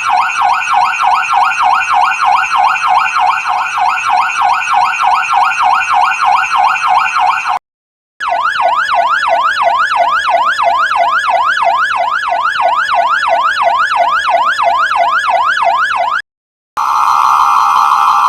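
Fire truck electronic siren sounding in a rapid up-and-down warble, cutting off, then starting again in a faster sweeping yelp. After a second short break a steady harsh tone begins near the end.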